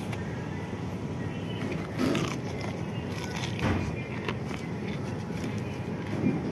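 Steady background rumble with a few short crackles and knocks as crispy fried chicken is torn apart and handled in a cardboard takeout box.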